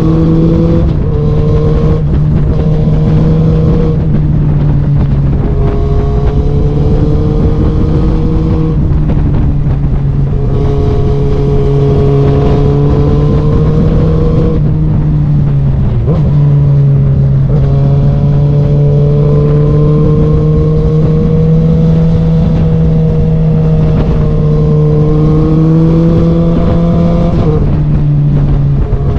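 Sport motorcycle engine under way, heard from the bike, its note climbing gradually and dropping back several times as the rider accelerates through the bends, over a rush of wind noise.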